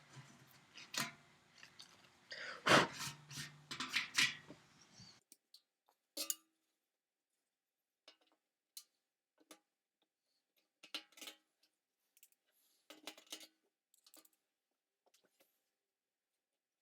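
Tape being pulled off, a rasping rip over the first five seconds. Then scattered light clicks and taps from parts being handled.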